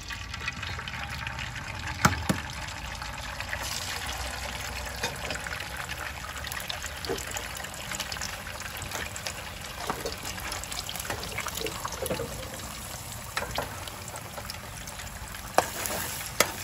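Eggs frying in hot oil in an aluminium pan: a steady crackling sizzle that grows stronger a few seconds in. A sharp knock about two seconds in, and a few clicks of a metal spoon against the pan near the end.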